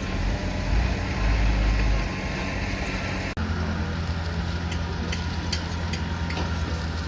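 Engine of a heavy construction machine running steadily. The sound changes abruptly about a third of the way through, and after that light clicks repeat about twice a second over the engine.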